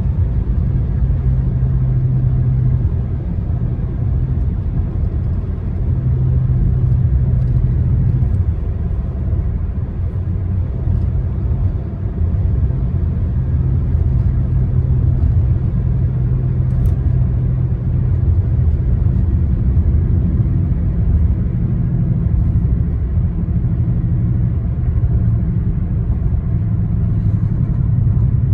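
2015 Toyota Corolla at speed downhill, with steady road rumble and a loud low vibration hum from the brakes. The hum comes and goes several times as the brakes are pressed and released. The noise appeared after new rotors and aftermarket brake pads, and the owner cannot tell whether the pads need replacing or something else is wrong.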